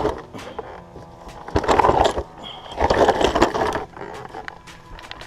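Two rough bursts of scraping and rattling, each about a second long, over faint background music.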